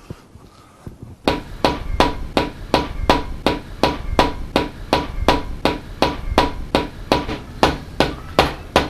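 Rapid, even hammer taps, roughly three a second with a short metallic ring, starting about a second in: a small hammer or mallet used as a persuader to drive a slightly stuck camshaft home through its bearings in an MGB engine block.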